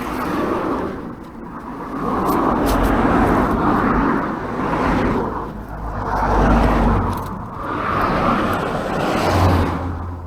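Road traffic passing, a rushing noise with a low rumble that swells and fades several times as vehicles go by.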